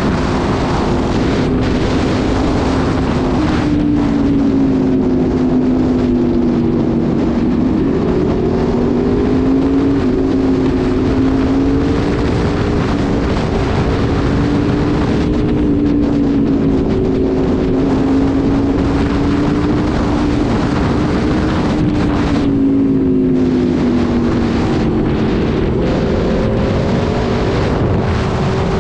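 Aprilia RSV4 1100 Factory V4 with an SC Project exhaust running at a steady cruise, with wind rushing over the microphone. The engine note drifts gently up and down with small throttle changes.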